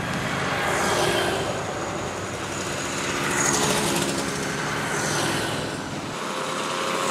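Motorcycles riding past one after another, each engine swelling as it comes close and dropping in pitch as it goes by, with another approaching near the end.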